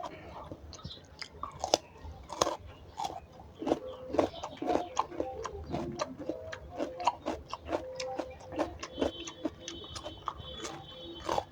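A person chewing and biting food close to the microphone: a steady run of short, sharp mouth clicks and wet smacks, several a second.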